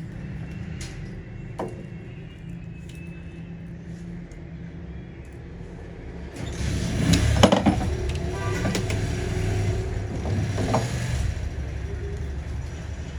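A low, steady machine hum. About six seconds in, a louder rushing noise starts, with a few sharp metallic clanks.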